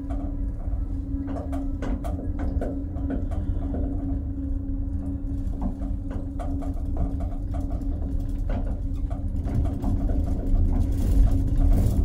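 Running noise heard inside a small aerial cable car cabin as it travels along its cable: a steady low rumble and hum with light rattling clicks.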